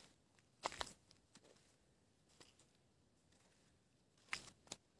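Near silence broken by faint crunching footsteps on dry sandy ground and scrub: a brief pair of crunches about a second in and another near the end.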